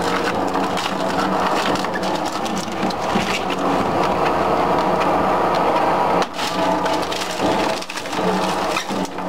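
GRUENN twin-shaft claw-tooth shredder crushing and splintering branches and green plant material: a dense, continuous crackle of breaking wood over a steady hum, with brief lulls about six and eight seconds in.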